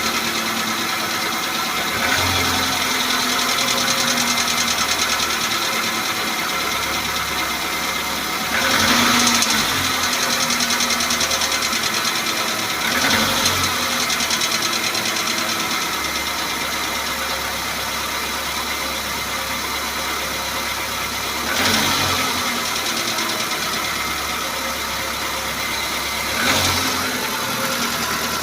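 Renault Logan 1.6 engine idling with an extraneous noise that the owner is trying to identify, revved briefly five times.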